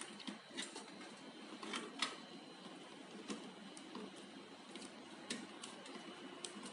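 Light handling noise from electrical cables being pushed and tucked into a floodlight's driver box: scattered faint clicks and ticks with soft rustling.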